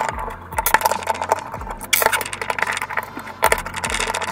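Screwdriver turning out the small screws of a pressure-washer short trigger gun's housing: a run of fast small metal clicks and scrapes, with louder spells about a second and a half apart.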